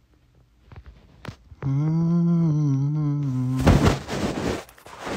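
A man hums one low, wavering note for about two seconds, then a short, loud burst of noise comes as the phone is moved.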